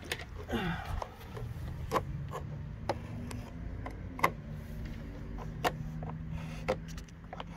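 Scattered light clicks and taps from a piece of vinyl siding being handled and traced along with a pencil, over a steady low hum.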